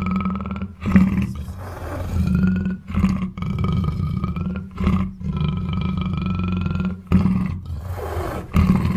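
Black panther roaring and growling in a run of calls, each one to two seconds long, with short breaks between them.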